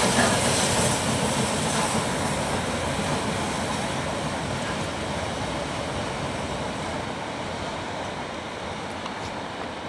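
LMS Princess Coronation class Pacific steam locomotive 46233 'Duchess of Sutherland' and its train of coaches passing, then running away. The noise of the train fades steadily as it goes.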